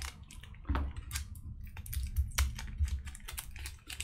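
Irregular light clicks and scrapes from a prying tool worked under the plastic backlight layers, against the metal back of a MacBook Air keyboard, as the sheets are lifted away.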